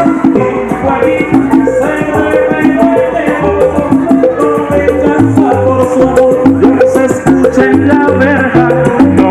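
Latin dance music from a vinyl record: a bouncing bass line stepping between notes, melody instruments over it, and shaker percussion ticking along steadily.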